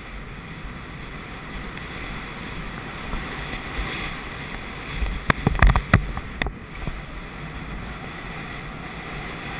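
Steady wind rushing over an action camera's microphone as the rider gallops a horse across open grass. A short cluster of sharp knocks comes about five to six seconds in.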